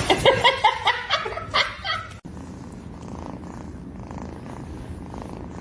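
Domestic cat purring steadily, after about two seconds of pitched, voice-like sounds that cut off abruptly.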